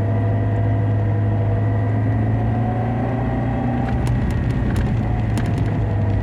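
LADA Niva Travel heard from inside the cabin while driving: a steady low hum with a droning tone above it, the extraneous drivetrain hum that the owner hears when slowing on engine braking and suspects comes from the transfer case, rear axle or driveshaft. A few light clicks sound a little past the middle.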